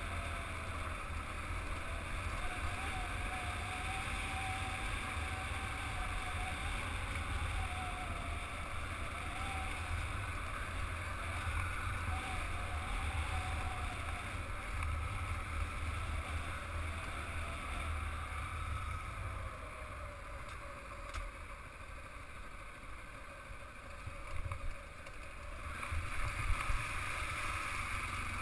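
Motorcycle engine running at riding speed on a dirt track, its pitch wavering up and down with the throttle, under a heavy rumble of wind on the microphone. Near the end come irregular knocks and rattles as it rolls onto loose rocks.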